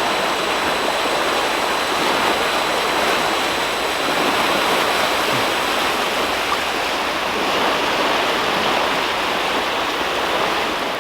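Steady rushing of water pouring out of a storm-drain outfall: road runoff being discharged into the flooded river.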